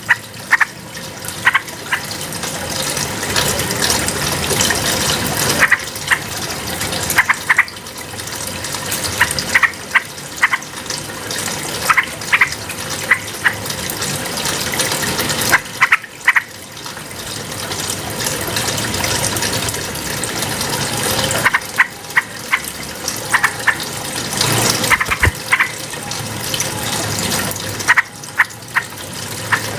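Yellow-vented bulbul (trucukan) song: short, sharp notes in quick clusters, repeating every second or two over a steady rush of running water.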